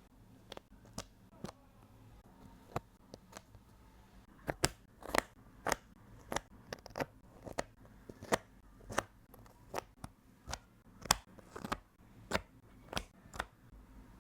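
Cardboard jigsaw puzzle pieces being handled and pressed into place: a run of sharp, irregular clicks and taps, about two a second.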